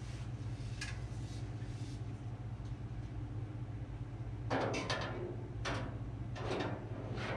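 Aluminium aircraft rear spar being fitted into the horizontal stabilizer's skins: several short scrapes and knocks of metal on metal from about halfway through, over a steady low hum.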